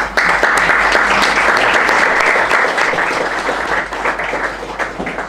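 Audience applauding: dense, steady clapping that starts at once and tapers off near the end.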